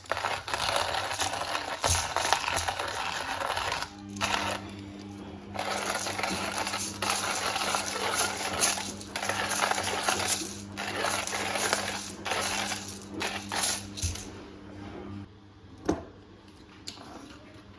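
Coffee beans being ground in an electric grinder: a gritty clatter of beans, joined about four seconds in by a steady motor hum, which stops about three seconds before the end.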